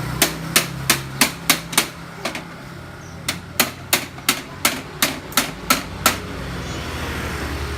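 Sharp knocks, about three a second, in two runs with a short pause between, like hammering. They stop about six seconds in, and a low steady rumble like a running engine carries on to the end.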